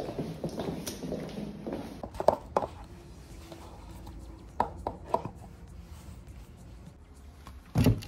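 Sharp knocks and taps of block-heeled leather pumps on a tiled floor as they are stepped out of and set down, a few scattered clicks, then a louder cluster of knocks near the end as a shoe is picked up and put down on a hard surface.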